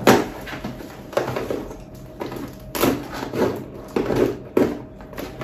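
A cardboard gift box being slit open with a key and its flaps pulled apart: a string of irregular scrapes, rips and rustles.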